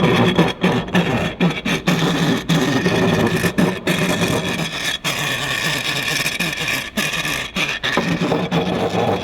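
Heating circulation pump running with a steady electric hum and an irregular rustling, scraping noise. The rotor is rubbing inside, most likely from a worn bushing.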